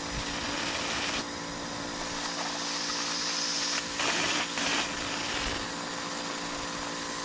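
Air-powered vacuum fluid extractor running, a steady hiss of compressed air with a steady hum beneath it, as it draws old gasoline out of a boat's fuel line. The hiss shifts in strength about a second in and again around four to five seconds in.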